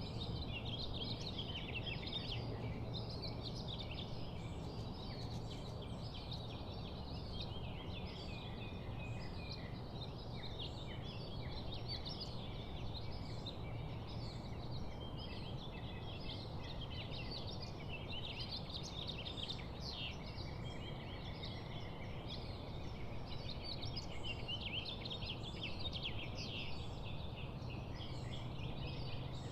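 Dawn chorus of many small songbirds chirping and twittering continuously over one another, over a steady low background rumble.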